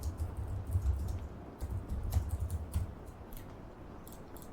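Typing on a computer keyboard: irregular keystroke clicks, dense at first and thinning to a few scattered keys after about three seconds.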